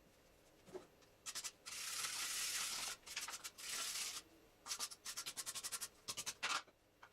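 Hand-tool work on a car alternator during its reassembly: a scraping rub lasting about a second, then several runs of quick clicks and short scrapes.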